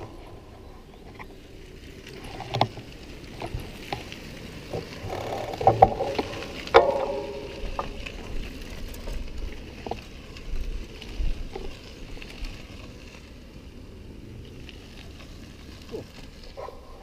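Mountain bike rolling over a bumpy dirt track, heard from a camera mounted on the bike: a steady rumble of tyres and wind with frequent rattles and knocks from the bike over the bumps, louder clatters about two and a half and six seconds in.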